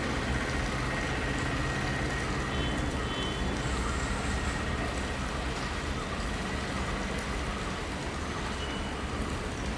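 Helicopter running steadily overhead, a constant engine and rotor drone with a thin, steady high whine.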